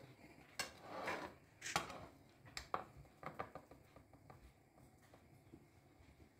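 Metal spoon scraping and tapping on a plate while spreading mashed potato: a few soft smears and light clicks in the first three seconds, quieter after.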